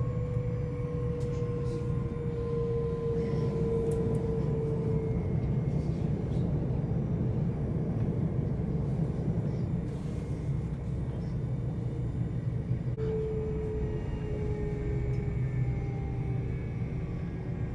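Inside an SOB Traverso (Stadler FLIRT) electric train running: a steady low rumble from the wheels and track, with the electric traction whine falling slowly in pitch twice as the train slows on its approach to a stop.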